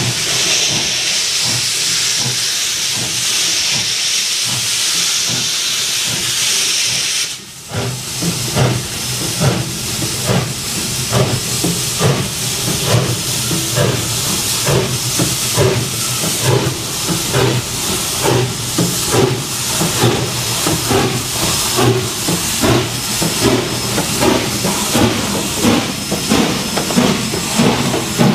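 Canadian Pacific 2-8-0 steam locomotive 3716 starting off: a steady loud hiss of steam from its open cylinder cocks for about seven seconds cuts off sharply. Then the exhaust chuffs in an even beat as the engine draws closer.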